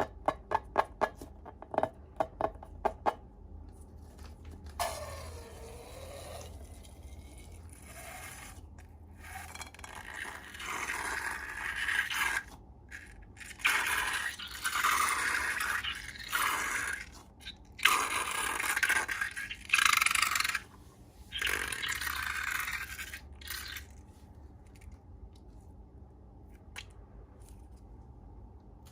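Slime-making sounds: a quick run of about a dozen sharp clicks, then bursts of scraping as ingredients are worked in a container.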